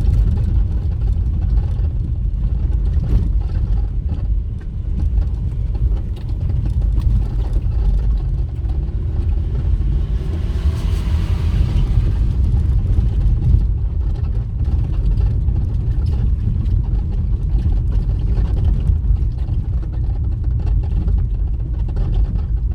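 Steady low rumble of a moving vehicle, engine and road noise, with a hiss that swells and fades about eleven seconds in, like another vehicle passing.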